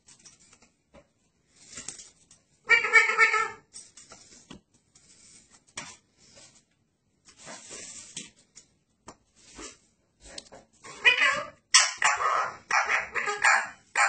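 Blue ringneck parakeet calling at its own reflection: one loud drawn-out squawk about three seconds in, faint short chirps in between, then a run of harsh, rapid squawks over the last three seconds.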